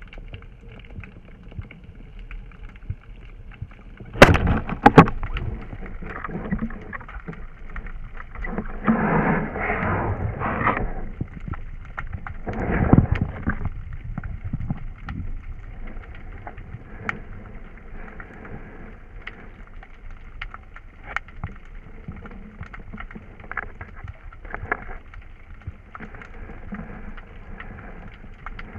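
Underwater sound picked up through a camera's waterproof housing: a muffled rushing hiss sprinkled with small clicks, with a sharp loud knock about four seconds in, a louder rush around nine to eleven seconds, and another loud burst near thirteen seconds.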